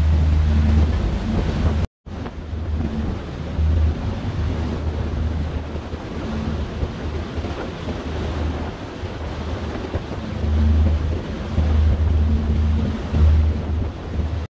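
Wind buffeting the microphone aboard a moving ferry, over a steady rush of water, with a low rumble that swells and fades. The sound cuts out completely for a moment about two seconds in.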